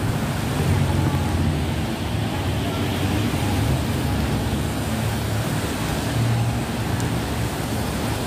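Traffic on a rain-soaked road: motorcycle and car engines running and tyres hissing on wet asphalt, over a steady rushing hiss of heavy rain.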